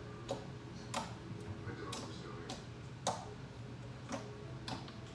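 Borax-activated glue slime being kneaded and stretched by hand, giving sharp sticky clicks and pops about once a second over a steady low hum.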